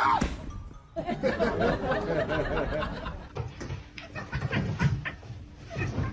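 A person laughing, with a few light clicks and knocks later on.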